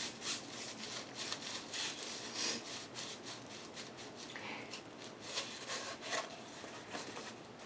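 Rustling and rubbing of a diamond painting kit's packaging and rolled canvas being handled, with many short scrapes and clicks.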